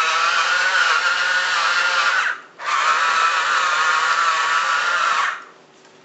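Small electric motor whining with a steady, slightly wavering pitch. It cuts out briefly about two and a half seconds in, starts again, and stops shortly before the end.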